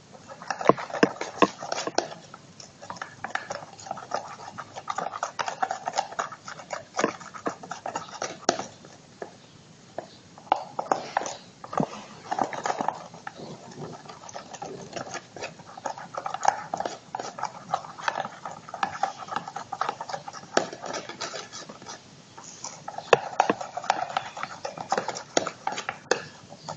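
A spoon stirring a sticky, salt-thickened slime mixture in a bowl or cup: irregular clicks and taps against the container, with stretches of wet scraping.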